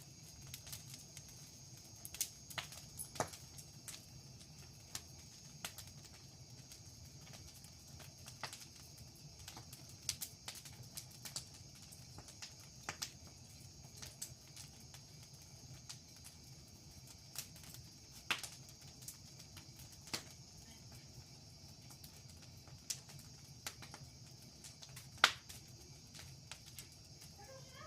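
Wood bonfire crackling, with irregular sharp pops a second or two apart and one louder pop about 25 seconds in. A steady high insect chirring runs underneath.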